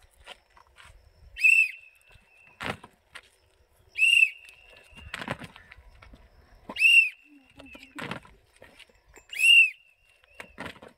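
Whistle blown in four short, sharp blasts about two and a half seconds apart, each one the signal for a squad to jump from a squat. About a second after each blast comes a scattered thud of shoes landing on the road.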